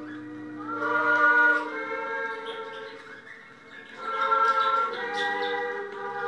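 A choir singing a slow devotional song in long, held notes, softening briefly in the middle before a louder phrase comes in.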